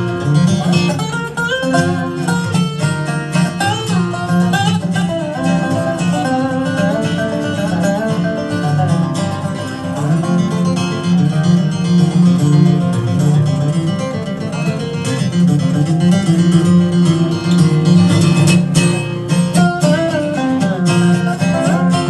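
Live acoustic bluegrass instrumental break with no singing: an acoustic guitar keeps a steady strummed rhythm while a plucked string instrument plays the melodic lead.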